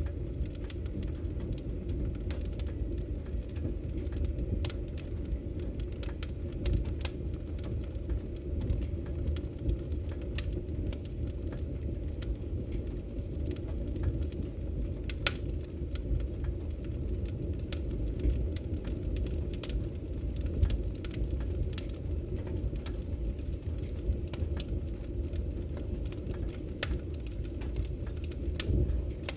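Fireplace wood fire burning: a steady low rumble of flames with irregular sharp crackles and pops scattered throughout.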